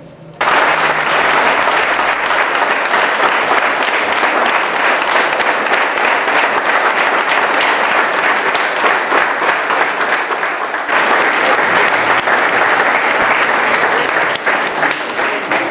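An audience clapping, starting all at once about half a second in and keeping up a steady, dense applause.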